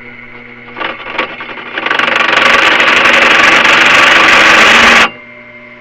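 Electric drill running with a new twist bit cutting into metal: a couple of short scrapes about a second in, then a loud grinding screech as the bit bites, lasting about three seconds and cutting off suddenly.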